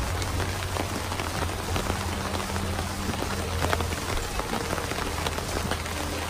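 Pouring rain falling steadily, with individual drops tapping on nearby surfaces.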